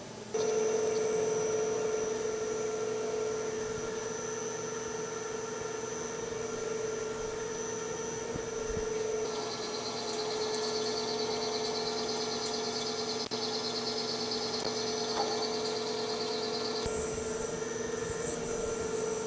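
Smart lathe's spindle drive starting about half a second in and running at a steady speed with an even whine. From about nine seconds in, a higher hiss joins for some seven seconds as the tool cuts away the freshly cut thread.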